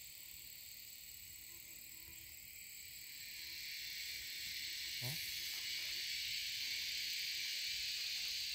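Steady high-pitched buzz of an insect chorus, which swells louder about three to four seconds in. A brief sound rising in pitch about five seconds in.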